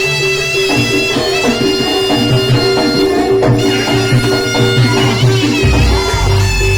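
Live East Javanese jaranan music: a shrill, reedy wind instrument plays long held notes over drumming, with a steady low tone underneath.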